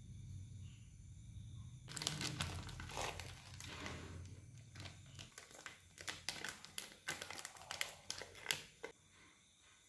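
Plastic flour packet crinkling as it is handled and tipped to pour flour into a bowl: bursts of crackly rustling starting about two seconds in, with the sharpest crackle near the end.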